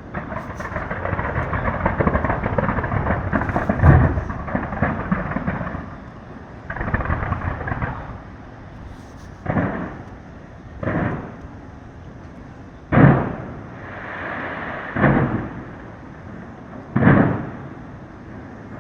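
Fireworks going off: a dense crackle of many small bursts with one loud bang about four seconds in, then five separate booms roughly two seconds apart, each trailing off. The boom in the middle is the loudest.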